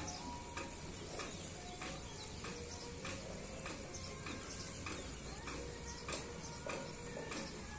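Outdoor dawn ambience: a steady low rumble with short sharp clicks or chirps about twice a second and a few brief faint tones.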